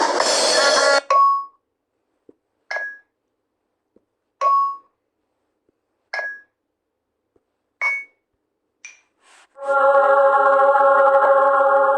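Edited sound effects: five short, sharp pings with a brief ringing tone, about one and a half to two seconds apart, then a held chord-like tone from about three-quarters of the way in.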